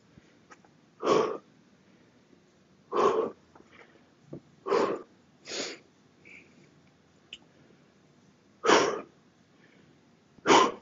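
A man breathing hard with six loud, forceful exhales a second or two apart: he is winded, catching his breath between sets of heavy kettlebell swings.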